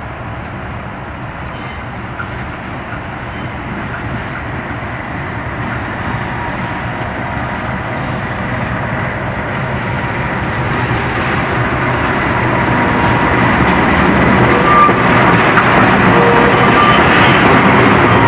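CC206 (GE CM20EMP) diesel-electric locomotive hauling a passenger train as it approaches and passes close, its engine running and the rolling noise growing steadily louder. About six seconds in a thin high squeal holds for about three seconds, and wheel clicks over the rail joints come as the locomotive draws level near the end.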